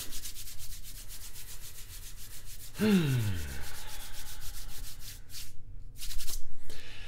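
Hands rubbing briskly together, palm against palm, in rapid even strokes, with a short falling hum from the voice about three seconds in.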